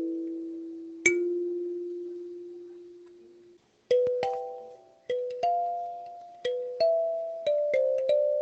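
Solo kalimba playing a slow melody, the plucked metal tines ringing and fading after each note. About a second in, one low note rings for a long time. After a brief pause the melody picks up again, with notes about every half second.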